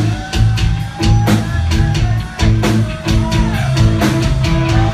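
Live rock band playing: electric guitar over a drum kit with a steady beat.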